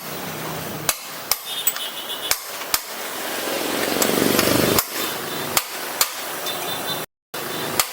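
A hammer striking metal in about nine sharp, irregular blows, some leaving a brief metallic ring. A rushing noise builds in the middle and cuts off sharply at a blow about five seconds in.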